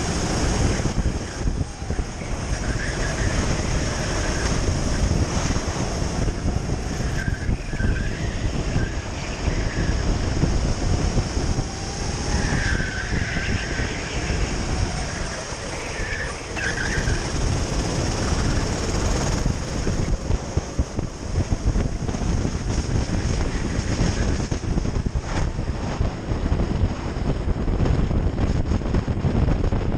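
Onboard sound of a Sodi RT8 racing kart's four-stroke engine running under load on a lap, with wind buffeting the microphone.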